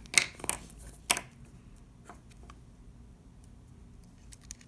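Sharp clicks and taps of small tools and parts against a smartphone's metal frame as it is taken apart: three louder clicks in about the first second, then a few fainter ticks.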